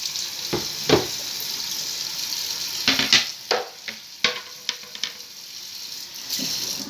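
Stainless pot of beef and water coming to the boil on a gas burner: a steady hiss with bubbling. A few sharp taps land about a second in and again around three to four seconds in.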